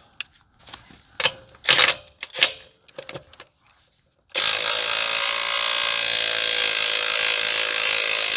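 A few scattered clicks and knocks, then, a little over four seconds in, a DeWalt Atomic half-inch cordless impact wrench starts hammering steadily in mode one, trying to break loose a truck lug nut torqued past 250 foot-pounds.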